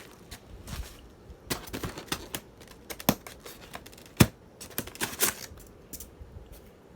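Ceiling fan parts being handled out of their packaging: a scattered run of sharp clicks and clacks of hard pieces knocking together, the loudest about four seconds in.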